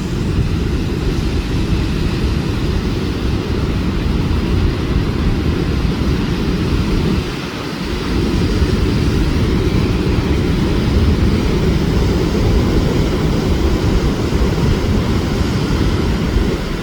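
Strong cyclone wind rumbling on the microphone over the steady wash of surf, easing briefly about halfway through.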